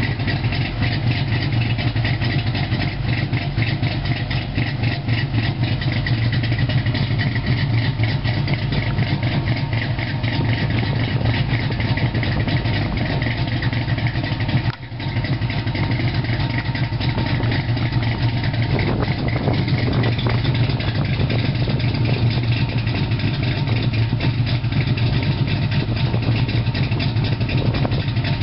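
Cammed Ford Mustang 3.8 V6 idling through long-tube headers, an off-road H-pipe and Flowmaster 40 mufflers. The exhaust note is a steady, deep pulsing with a momentary break about halfway through.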